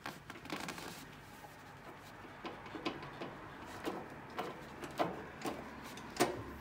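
Irregular light mechanical clicks and knocks from the rear wheel, chain and drivetrain of a vintage Puch 250 motorcycle being worked by hand with the engine not running, about a dozen scattered clicks, one sharper knock near the end.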